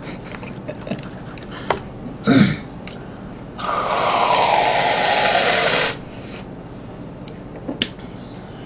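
Aerosol whipped-cream can sprayed straight into the mouth: a loud steady hiss of just over two seconds, starting a few seconds in, with a tone that slides down in pitch as the cream comes out.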